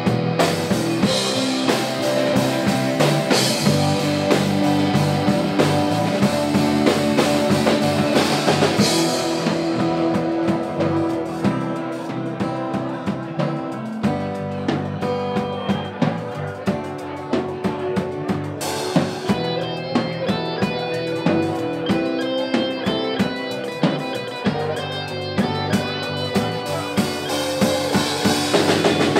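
Live band playing pop-rock music with a drum kit keeping a steady beat under guitar. The treble drops away about nine seconds in and comes back about ten seconds later.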